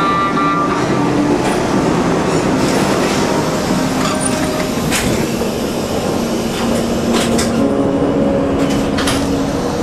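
New York City subway train running along the platform with a loud, steady rumble and a few sharp wheel clicks. Held cello notes sound faintly under the train noise.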